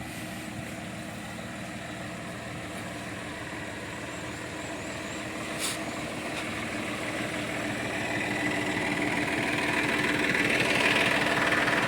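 Engine of a rice combine harvester running steadily, growing louder over the last few seconds, with one short click about halfway through.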